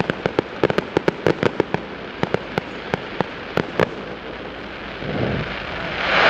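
Fireworks display going off: a rapid string of sharp cracks and pops, several a second, then a louder, denser noise building near the end.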